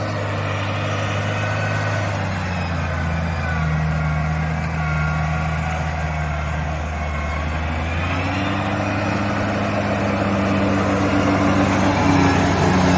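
Case Maxxum 140 tractor engine running under load while driving a Maschio Falco rotary tiller through the soil, with higher whining tones over the engine note. The engine note shifts upward about two-thirds of the way through.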